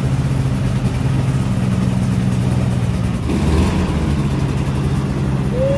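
SCAT hovercraft's small engine idling steadily, just started after sitting for a couple of months on old fuel.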